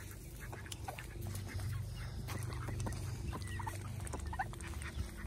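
Small flock of young ducks foraging, with scattered soft, short quacks and calls and small clicking sounds, over a low steady hum.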